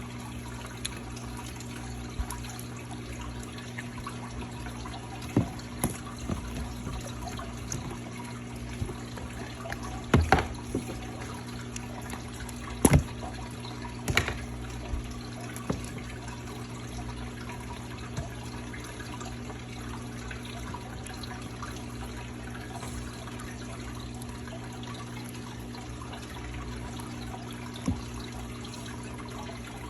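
Slime being mixed and squished by hand: scattered wet clicks and squelches, with a cluster of louder ones between about five and fifteen seconds in, over a steady low hum.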